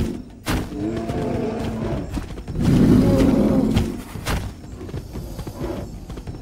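Tyrannosaurus rex roar sound effect: a loud rumbling roar about two and a half seconds in, after a lower, wavering growl. Two sharp thuds, one near the start and one just after the roar.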